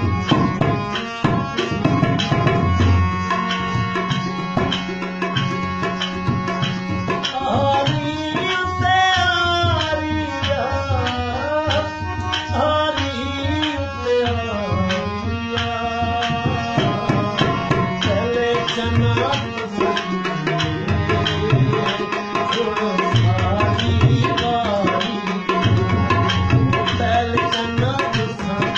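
Harmonium and tabla playing together: the harmonium holds sustained chords under a melody while the tabla keeps up a quick, steady pattern of strokes. For several seconds in the middle a voice sings a long, wavering phrase over them.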